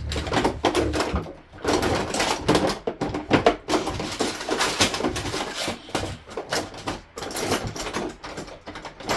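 Packaging of a new faucet cartridge being handled and cut open with an X-Acto knife: irregular crackling, rustling and sharp clicks.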